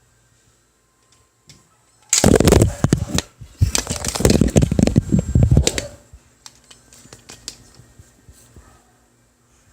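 Loud close-up clattering and rubbing against the microphone for about four seconds, starting about two seconds in, like the camera being grabbed and handled; then scattered light clicks and taps.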